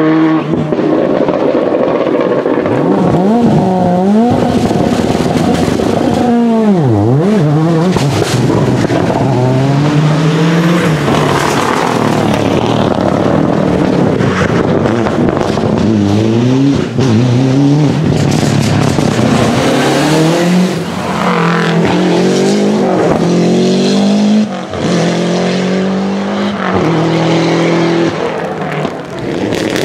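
Rally cars driven hard one after another, engines revving up and falling back through gear changes, with sharp exhaust pops and backfire bangs between the revs.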